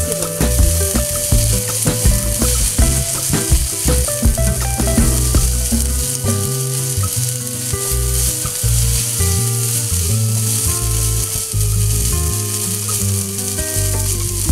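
Rice and diced chicken sizzling in a hot nonstick frying pan while a plastic spatula stirs and mixes them, with frequent short clicks and scrapes of the spatula against the pan.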